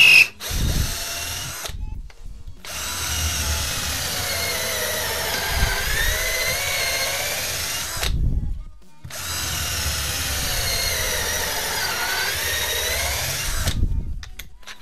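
Ginour 12 V cordless hammer drill-driver drilling into pallet wood. There is a brief burst, then two long runs of a few seconds each, with a short pause between them. The motor's whine falls and rises in pitch during each run.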